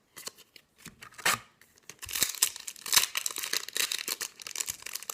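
A foil Yu-Gi-Oh! booster pack wrapper being torn open and crinkled by hand: a few sharp snaps, then about three seconds of dense crackling.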